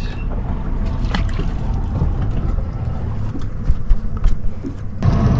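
Steady low rumble aboard a boat at sea, with a few light clicks and knocks, louder in the last half-second.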